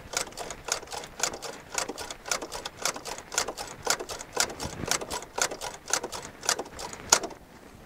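Electric fuel pump ticking rapidly, about six or seven clicks a second, as it primes fuel up to the carburetor. The ticking stops a little after seven seconds in.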